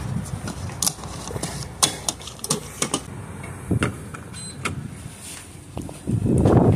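Handling clicks and clunks at a gas pump as the fuel door and cap are opened and the nozzle is lifted and handled near the grade buttons, with several sharp clicks spread over the first five seconds. A louder rushing noise starts about six seconds in.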